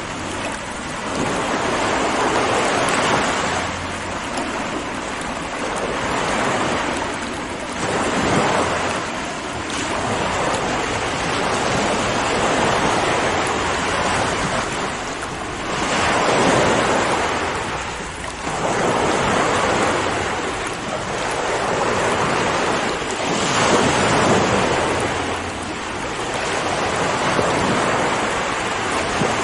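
Ocean waves breaking and washing on a shore, a continuous rushing surf that swells and ebbs every few seconds.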